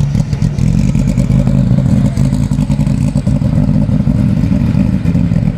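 GT3 race car's engine running steadily with a low, even note, without revving.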